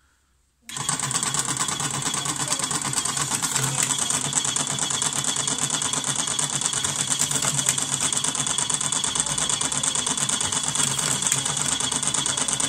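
Electric slim cigarette-rolling machine switched on and running, its motor and tobacco-filling mechanism clattering in a fast, even rhythm as it stuffs tobacco into filter tubes. It starts abruptly just under a second in, then runs steadily.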